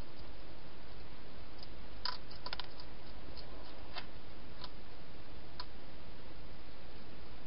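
Hedgehog eating inside a plastic feeding box: a handful of short sharp clicks and crunches, a small cluster of them about two seconds in, over a steady hiss.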